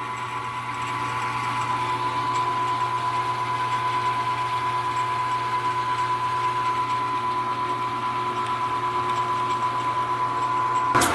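Small benchtop machine tool's electric motor running steadily with a constant whine and hum, then switched off with a click near the end.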